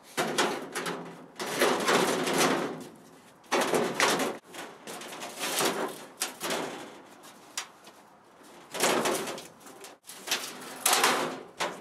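Thin aluminium shed sheeting on a wooden-framed wall panel scraping and rattling as the panel is shifted into place. It comes in about seven rough bursts of a second or so each, with short gaps between them.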